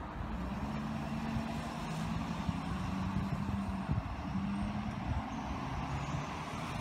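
A motor vehicle's engine running steadily, heard as a low, even hum.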